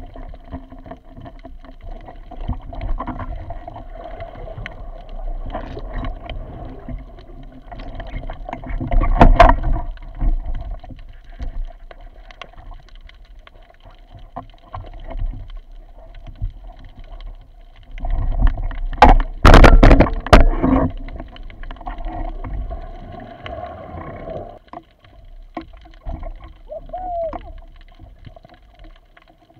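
Underwater audio from a speargun-mounted action camera: water swishing and bubbling against the housing. Loud sudden bursts of splashing and knocking come twice, about nine seconds in and again around twenty seconds.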